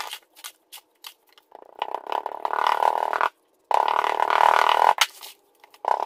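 Green casting sand being filled into a wooden mould box and packed with an aluminium hand rammer: a few light knocks, then two long spells of gritty scraping noise that start and stop abruptly.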